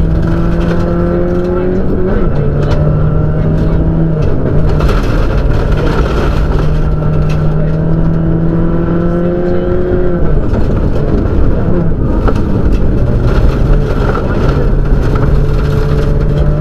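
Subaru rally car's turbocharged flat-four engine heard from inside the cabin, driven hard on a gravel stage: its pitch holds or climbs, then drops at each gear change, several times over. Dense road and gravel noise runs underneath.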